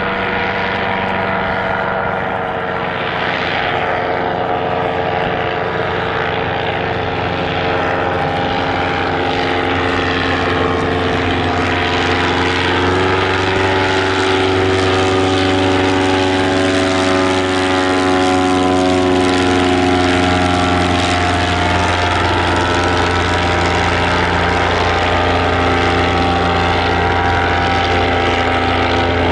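Piston-engined propeller aircraft running loud and steady, its engine note shifting in pitch about twelve seconds in.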